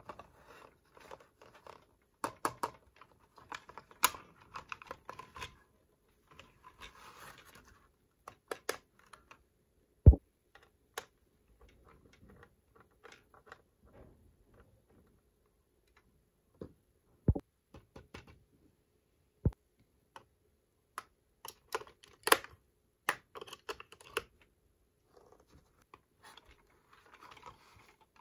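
Small plastic toy pieces and packaging handled by hand: irregular clicks and taps with a few brief rustles and scrapes, and one sharper knock about ten seconds in. There are a few seconds of near quiet just after the middle.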